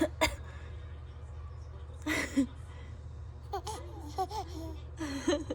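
A woman's short, sharp sneezes at the start and another about two seconds in. From about three and a half seconds a seven-month-old baby laughs out loud in his sleep, in short bouncing giggles.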